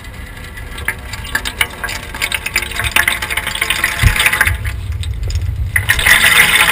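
Garden hose spraying water, a rushing hiss that builds from about halfway through and is loudest near the end, with handling noise and a knock on the body-worn cameras.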